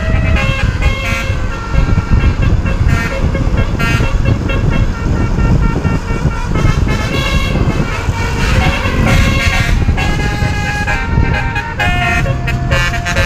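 Basuri telolet multi-tone vehicle horn playing a stepping melody of held notes over a loud low rumble.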